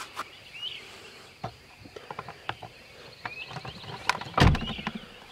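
Scattered clicks and knocks of handling, with one loud, heavy thump a little over four seconds in. Short bird chirps sound faintly behind them.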